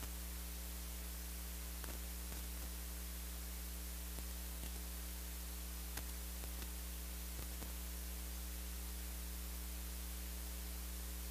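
Steady low electrical mains hum with a constant hiss, and a few faint ticks.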